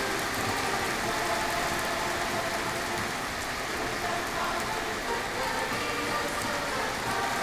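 Heavy downpour: rain falling hard and steadily.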